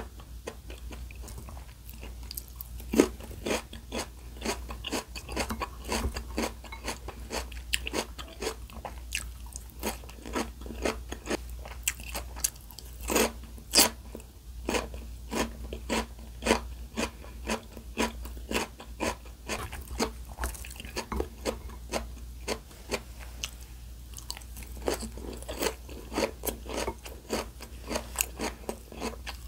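Close-miked chewing and biting of food with crisp crunches, several a second, heard as eating sounds.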